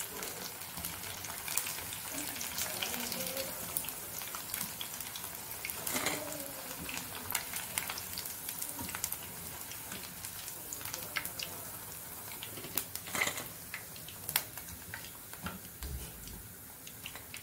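Battered mushroom pieces sizzling in hot oil in a kadai, with a few sharp clinks of a wire-mesh skimmer against the pan as they are scooped out. The sizzling grows a little fainter near the end.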